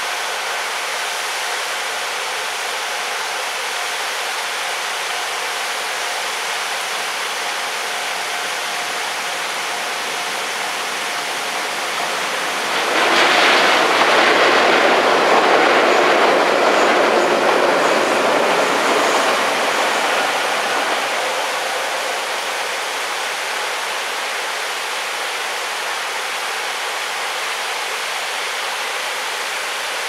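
A vehicle passes: a loud, even noise rises suddenly about 13 seconds in and fades away over roughly eight seconds, over a steady rushing background.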